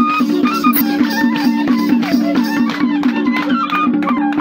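Nepali folk dance music: madal hand-drum strokes in a quick rhythm, over a steady low drone and a stepping melody.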